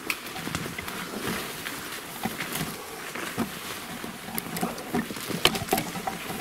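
Footsteps pushing through dry underbrush and fallen leaves: irregular crunching and rustling, with a few sharper snaps about five seconds in.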